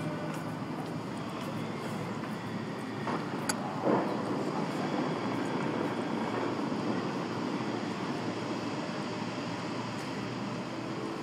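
Steady rushing outdoor background noise at height, with a sharp click about three and a half seconds in and a short bump just after.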